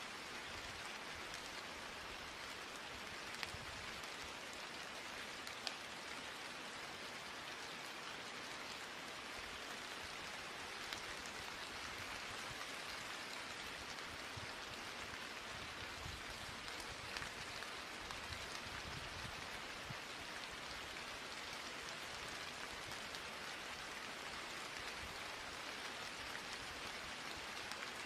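Steady rain falling: an even hiss with a few sharper drop ticks now and then.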